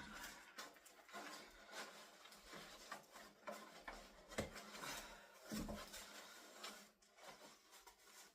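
Packaging being handled during an unboxing: irregular rustling, rubbing and light knocks of foam and box parts being moved.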